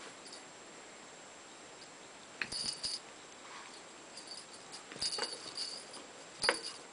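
Metal tags on a small puppy's collar clinking in short jingles as the puppy moves: once about two and a half seconds in, a cluster around five seconds, and again near the end.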